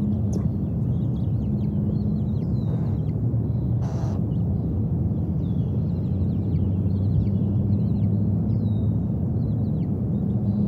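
Steady low rumbling hum outdoors, with short high bird chirps scattered over it.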